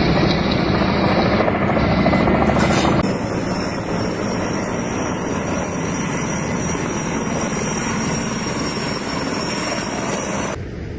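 Helicopter rotor and engine noise, steady and loud. About three seconds in, the sound changes abruptly and a steady high whine runs along with it until near the end.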